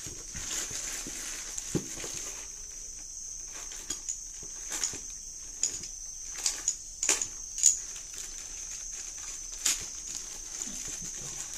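Plastic courier mailer bag being cut open with a small blade and handled, giving irregular crinkles, scrapes and sharp clicks, loudest about three quarters of the way through. A steady high-pitched buzz runs underneath.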